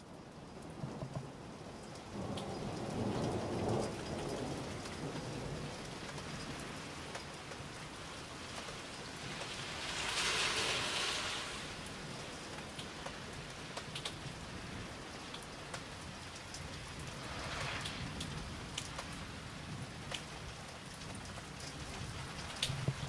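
Steady rain falling with scattered drip clicks, and a low rumble of distant thunder a few seconds in. Near the middle a hiss swells and fades over about two seconds.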